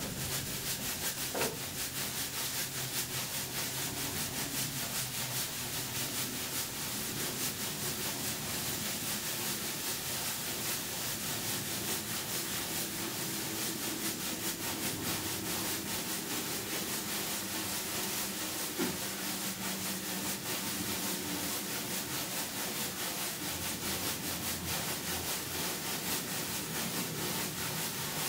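Sand being sifted by hand through a wooden-framed sieve hung on ropes, shaken back and forth: a steady, rhythmic scraping of sand over the mesh.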